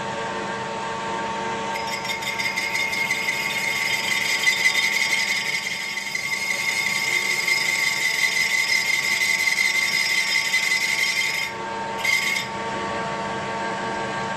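Metal lathe running while a cutting tool bores out the inside hole of a gear ring held in a four-jaw chuck. A high, steady cutting squeal sets in about two seconds in over the lathe's steady hum and stops a few seconds before the end, with one brief touch of the cut again just after.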